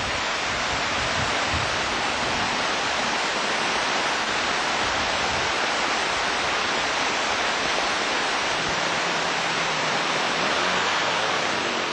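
Steady rushing of a stream over rocks, an even loud hiss that hardly changes. A faint low hum joins it near the end.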